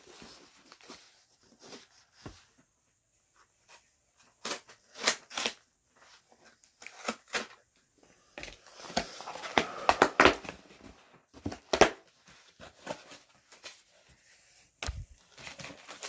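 Cardboard comic-book mailer being handled and torn open: scattered short scrapes and rips, with a denser stretch of tearing and rustling cardboard about halfway through.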